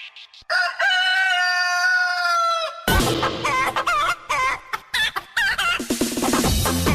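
A single long crow like a rooster's, followed about three seconds in by loud music that has wavering, clucking-like pitched sounds over a low beat.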